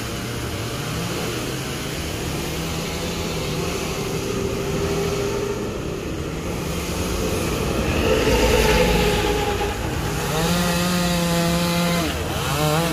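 Two-stroke chainsaw running high up in a tree, its pitch rising and falling as it is revved while cutting a branch, held at a steady high pitch for a couple of seconds near the end. A louder low rumble swells about eight seconds in.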